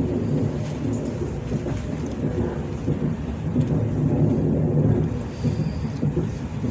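Moscow Central Circle electric train running, heard from inside the carriage: a steady low rumble of wheels and traction motors.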